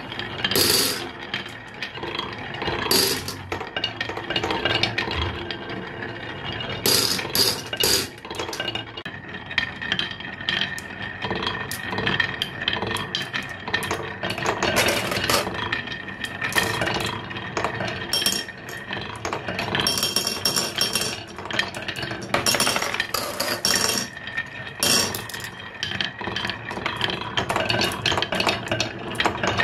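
Glass marbles rolling down carved wooden zigzag marble-run tracks, rattling along the wood and clicking sharply as they hit the track walls and each other.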